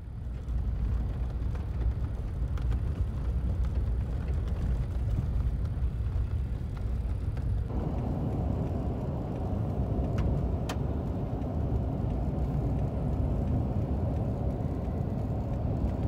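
Car driving along a road: a steady rumble of engine and tyre noise. About halfway through, the road noise gets fuller and stays that way.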